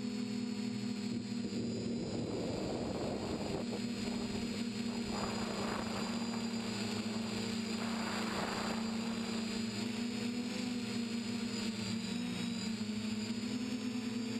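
TBS Discovery quadcopter's brushless motors and propellers running in flight as a steady buzzing hum. Bursts of rushing air come about two seconds in and again from about five to nine seconds, and the pitch dips briefly near the end.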